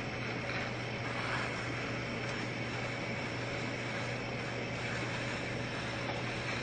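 A steady mechanical drone: a low hum under an even hiss that does not change.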